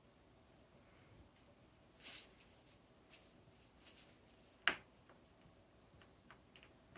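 Faint handling sounds of cotton fabric and pins: small rustles and clicks start about two seconds in, with one sharper click about two-thirds through.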